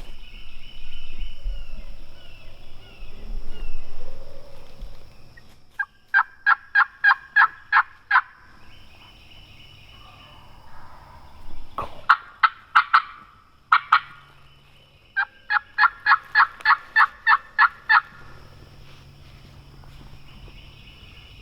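Turkey yelping in three runs of evenly spaced notes, the first about six seconds in, a shorter one near twelve seconds and the longest, about ten notes, around fifteen seconds in.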